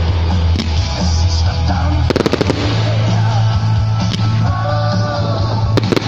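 Music with a steady bass line, with a quick cluster of firework bangs and crackles about two seconds in and another near the end.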